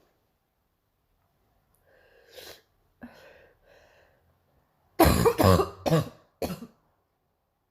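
A girl's barking morning cough: a few faint breaths and throat noises, then a quick run of four loud, harsh coughs about five seconds in.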